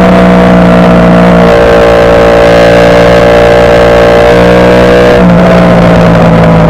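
Ducati Panigale V4 superbike's V4 engine running loud under way at fairly steady revs, its pitch shifting slightly about a second and a half in and stepping up again about five seconds in.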